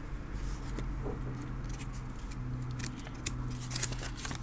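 Glossy paper pages of a thin storybook being handled and turned, with crisp rustles and flicks that bunch up about halfway through and again near the end, over a low steady hum.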